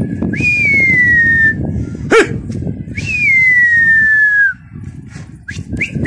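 A person whistling to a flock of pigeons in flight: two long mouth whistles, each falling steadily in pitch. A single short sharp yelp comes between them, about two seconds in, and short rising chirp-whistles begin near the end.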